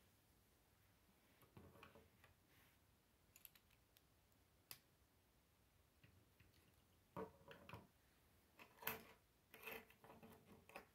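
Faint plastic clicks and taps of K'nex rods and connectors being snapped together and handled on a wooden table. They come in scattered clusters, busiest in the second half, with the loudest click about nine seconds in.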